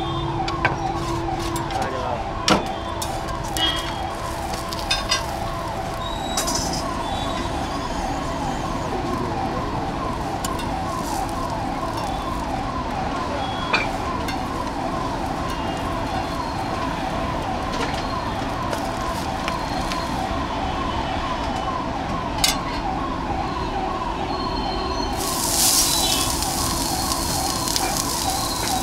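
A siren-like electronic warble repeating about three times a second runs throughout over a steady hum. A few sharp knocks of a knife on a cutting board come through, and about 25 seconds in onions hit a hot iron griddle with a burst of sizzling.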